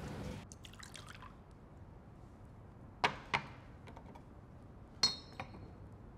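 Amber liquor poured from a crystal decanter into a glass tumbler, with faint clinks early on, two sharp knocks of glass on glass about three seconds in, and a ringing clink of crystal about five seconds in.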